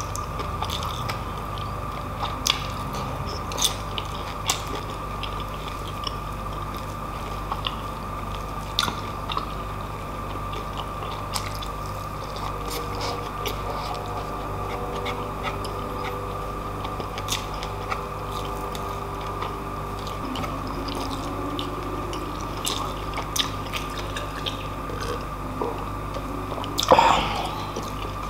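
Close-miked chewing and biting of pork lechon and rice, with sharp mouth clicks scattered throughout over a steady low hum. One louder mouth sound comes near the end.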